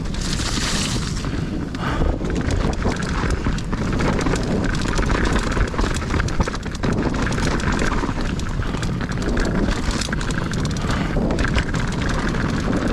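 Mountain bike riding a dirt trail: wind buffeting the microphone over the rolling tyres, with many quick clicks and rattles from the bike.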